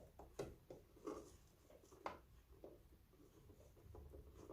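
Near silence, with a few faint clicks and rustles of handling.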